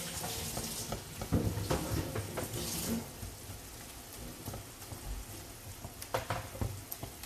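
Ground pork sautéing in a pan: a steady sizzle with the clicks and scrapes of a spatula stirring it, busier over the first three seconds, then a softer, even sizzle.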